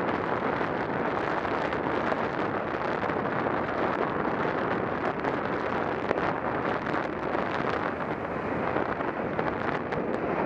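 Steady wind rush on the microphone of a camera mounted on a moving vehicle, mixed with road noise, with no breaks or distinct events.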